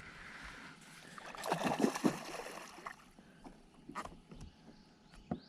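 Knocks and water sounds around a small fishing boat, with a quick cluster of knocks about a second and a half in and single knocks later.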